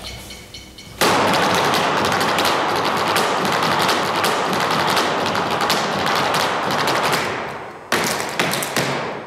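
Flamenco footwork (zapateado): dancers' boot heels and toes striking the floor in a very fast, dense rattle of stamps. It starts suddenly about a second in, dies away about seven seconds in, and then comes back in a short final burst.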